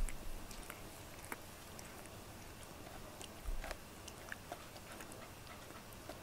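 A cat grooming itself, its tongue licking its fur in small, irregular wet clicks. Two soft low thumps, at the very start and about three and a half seconds in.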